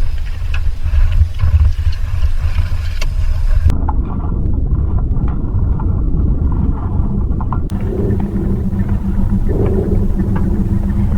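Loud, steady deep rumble that turns duller and darker abruptly about four seconds in, with a low steady hum joining it about eight seconds in.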